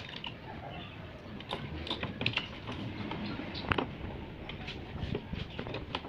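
Irregular light clicks and taps of plastic parts as a washing machine's control panel and its circuit board are fitted back together by hand, with a few sharper knocks.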